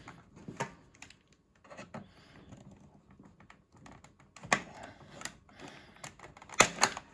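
Plastic clicking and scraping as a flathead screwdriver and a thin scraper pry at the glued seam of a Hasbro Haslab proton pack's plastic Cyclotron lid, breaking the glue on its pegs. Scattered light clicks, with a couple of sharp, louder clicks near the end.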